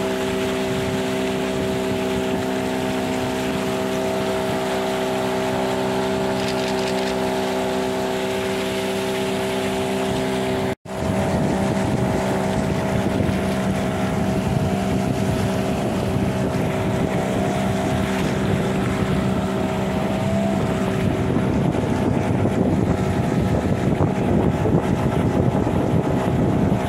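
Outboard motor of a river boat running at a steady speed, a constant drone with water and wind rushing over the microphone. The sound cuts out for an instant about eleven seconds in, then the motor carries on with more rushing noise.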